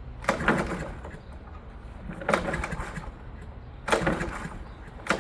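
Lawn mower engine being pull-started three times: each tug of the recoil starter cranks it briefly and it fails to catch. The owner puts the stalling down to the mower being wet and nearly out of fuel.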